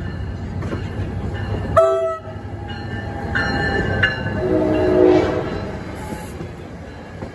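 NJ Transit ALP-45DP dual-mode locomotive 4519 passing close at speed, its horn sounding a short blast about two seconds in and then longer chords, over the steady rumble of wheels on rail.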